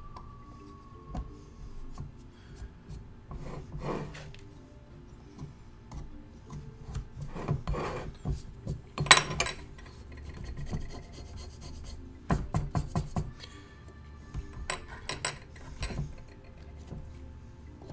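Small carving gouge scraping and chipping at a hard plaster face cast in short, irregular strokes, with hands rubbing the surface between strokes; the sharpest scrape comes about nine seconds in and a quick cluster follows around twelve to thirteen seconds. Quiet background music runs underneath.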